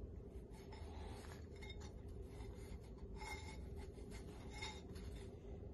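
Fingers rubbing and sliding over an aluminium transmission piston and its new rubber seals while spreading assembly lube: several faint, soft scuffing strokes over a low background hum.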